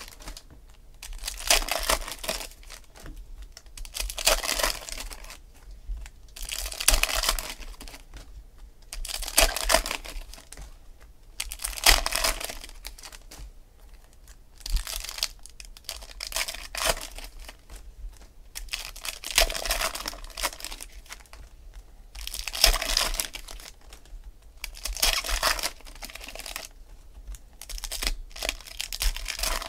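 Foil trading-card pack wrappers being torn open and crinkled by hand, in short bursts every two to three seconds.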